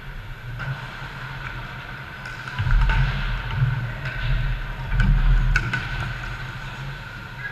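Ice hockey rink sound during play: a steady hum under skates and sticks on the ice. A low rumbling swells in about a third of the way through, and a few sharp clicks of sticks and puck come near the middle.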